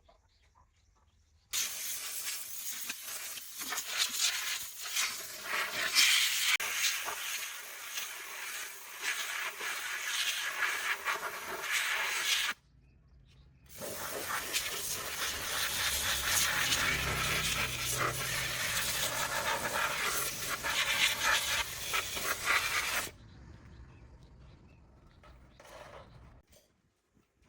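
Two long blasts of a hissing pressurised jet, about eleven and nine seconds long, each starting and cutting off abruptly, with a low rumble under the second.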